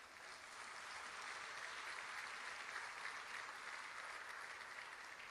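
Faint audience applause, swelling over the first second and then holding steady.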